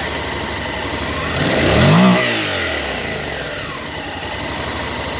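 Honda NC750X DCT's 745cc parallel-twin engine, stock exhaust, idling in neutral and given one quick throttle blip about a second and a half in. The pitch rises and drops back to idle within about a second.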